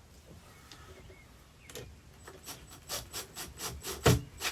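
Short scraping strokes, about three to four a second, starting a little under two seconds in and growing louder: a screwdriver turning and tightening a wire terminal screw on a replacement RV power converter.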